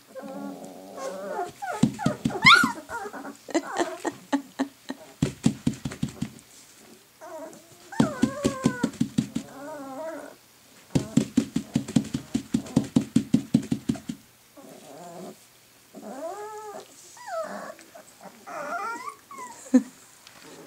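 Bernese Mountain Dog puppies, three to four weeks old, growling in several short runs of fast pulses while they mouth and chew on each other. Between the runs come high whines that rise and fall.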